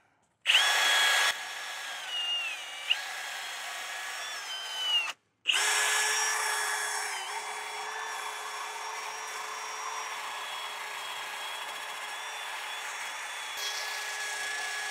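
Brushless cordless drill spinning a wire wheel brush against a rusty brake caliper, scrubbing off corrosion. It runs as a steady whine with scraping, in two spells with a short stop about five seconds in, and its pitch dips briefly a couple of seconds in.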